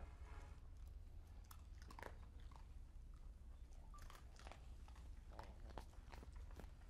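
Near silence: faint, irregular clicks scattered over a low, steady rumble.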